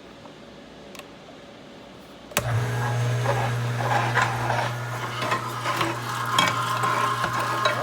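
Weston #32 1.5-horsepower electric meat grinder switched on about two and a half seconds in, its motor then running with a steady low hum. Many small crackles and clicks ride over the hum as semi-frozen venison is fed through and ground.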